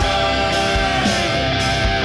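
Background rock music with electric guitar and a drum beat.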